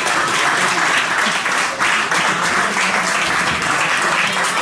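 Audience applauding steadily, a dense crackle of many hands clapping, for the winner of the bout.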